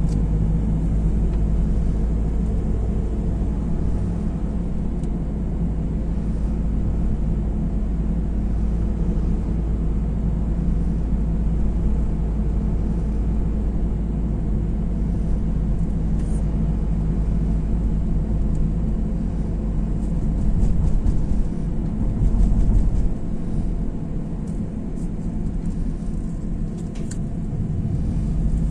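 Car interior noise while driving: a steady low rumble of engine and tyres on the road, heard from inside the cabin. The deepest part of the rumble eases off for a few seconds toward the end.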